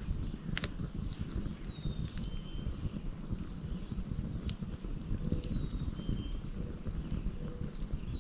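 Wood fire burning with a low steady rumble and scattered sharp crackles and pops. A bird repeats a two-note whistle, the second note a little lower than the first, about every three seconds.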